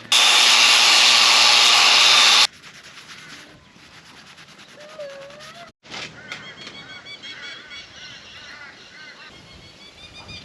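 A loud steady rushing noise for about two and a half seconds that cuts off abruptly, followed by birds calling with short, repeated arched notes.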